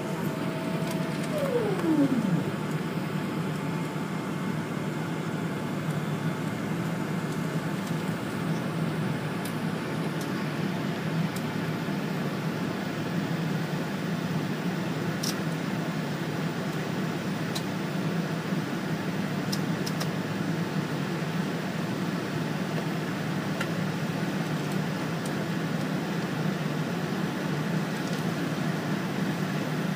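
Steady cabin rumble of a Boeing 777-300 taxiing, heard from a seat over the wing: engines at idle and the air-conditioning airflow. A steady whine drops in pitch and fades out about two seconds in.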